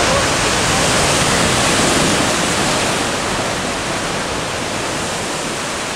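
Sea surf breaking and washing over shoreline rocks: a loud, steady rush that swells over the first couple of seconds and then slowly eases.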